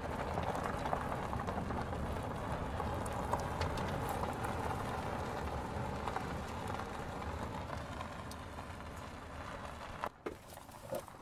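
A car's tyres rolling over a ribbed test-track surface: steady tyre and road noise with scattered clicks, dropping off sharply near the end.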